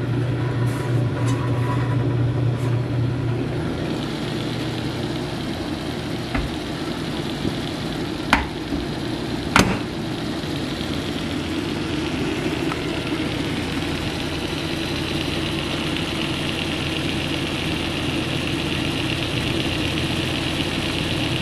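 Antique General Electric refrigerator's open belt-driven compressor, electric motor and condenser fan running steadily with a low hum and an airy hiss. Two brief knocks sound about eight and ten seconds in.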